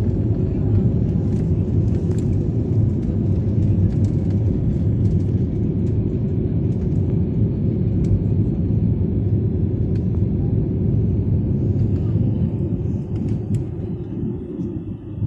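Jet airliner's engines heard from inside the passenger cabin during the climb after take-off: a loud, steady low rumble that drops in level near the end.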